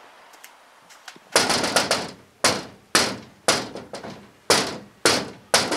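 Knocking on a door: a steady series of sharp knocks, about two a second, starting about a second and a half in.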